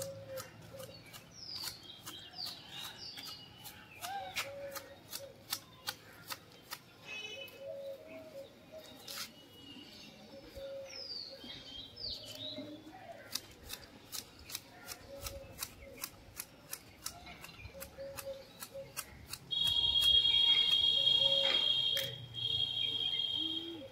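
Manual hedge shears snipping a hedge, the blades clicking shut in quick, irregular runs, with birds chirping now and then. Near the end a loud, steady, high-pitched whine comes in for about two seconds, breaks off briefly, and returns.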